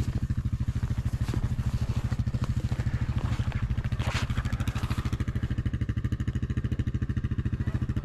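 ATV engine idling with a steady, rapid low pulse, with a brief clatter about four seconds in.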